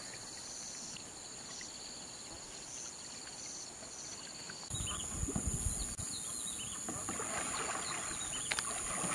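Steady high-pitched insect drone with a pulsing chirp over quiet outdoor pond ambience. About halfway through, the drone changes pitch and a faint low rumble and a few small chirps come in.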